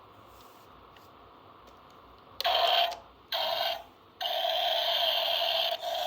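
Small motor of a toy electric screwdriver whirring in three bursts: two short ones about half a second each, then a longer run that carries on.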